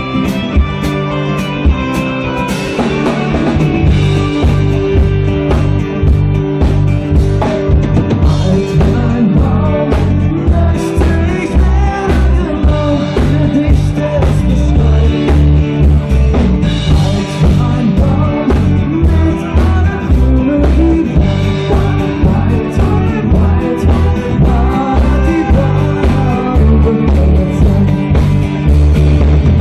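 Live rock band playing a cover song, with drum kit, electric bass, acoustic guitar and a lead singer. The full band with a steady drum beat comes in and gets louder about three seconds in.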